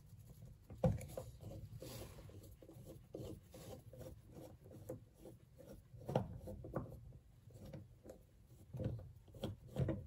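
Screwdriver turning and loosening the retaining screw on top of a faucet lever handle: faint, irregular scraping and rubbing, with a few sharper clicks about a second in and near the end.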